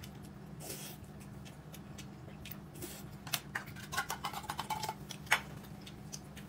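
Scattered light clicks and taps of chopsticks and tableware with eating noises at a meal, busiest in the second half with one sharper tap about five seconds in, over a steady low hum.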